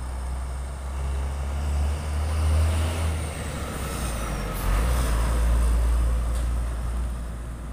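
Hino flatbed truck's diesel engine running as the truck drives past, a deep drone that swells as it comes close. About halfway through, the engine note drops lower as it goes by, and it is loudest just after that.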